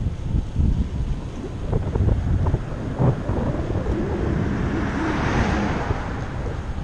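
Wind buffeting the microphone of a camera on a moving bicycle, a steady low rumble. An oncoming car's noise swells and passes about five seconds in.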